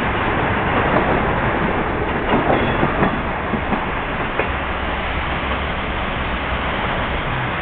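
24-series sleeper coach rolling out of a station, heard from inside: a steady running noise with several sharp wheel clicks over rail joints and points in the first half, and a low rumble later on.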